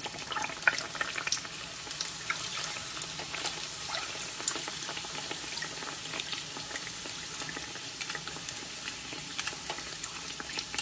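Bánh tiêu dough deep-frying in a pan of hot oil: a steady sizzle with many small crackles and pops, as hot oil is ladled over its top.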